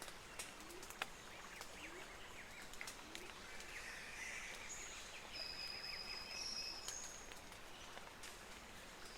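Wood fire crackling with scattered sharp pops, over a steady hiss. High whistling tones and short chirps sound now and then over it, a few of them held for about a second.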